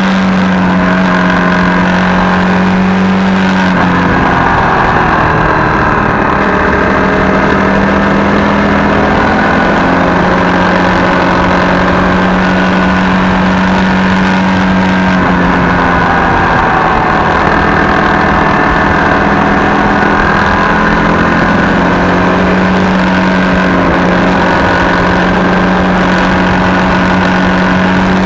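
Honda CRF250 Rally's single-cylinder engine running steadily while riding, its pitch slowly rising and falling as the revs change, over a constant rush of noise.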